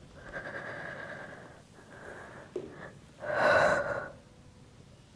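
A woman breathing hard through an exercise roll-up: a long, soft inhale, then about three seconds in a louder, forceful exhale lasting under a second.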